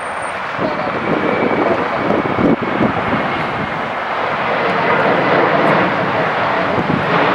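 Boeing 737-900 jet airliner departing under takeoff power, its CFM56-7B turbofans making a loud, steady rushing noise that grows louder about half a second in, with a faint steady whine above it.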